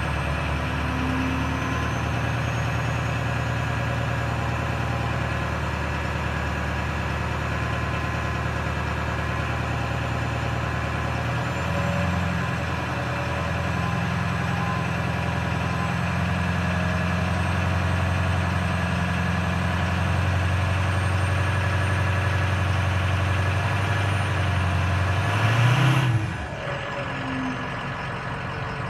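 Ford 6.0 Powerstroke V8 diesel running at a raised idle, its engine speed stepping up twice, then revved sharply once near the end and dropping straight back to idle. A faint high whistle climbs with the revs and falls away after the last blip.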